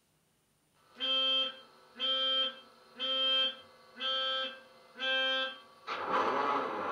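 Digitally sampled Class 66 diesel locomotive sound played by an ESU LokSound decoder through a small EM2 speaker in an OO-gauge model: five evenly spaced electronic beeps about a second apart, then the diesel engine starting up about six seconds in.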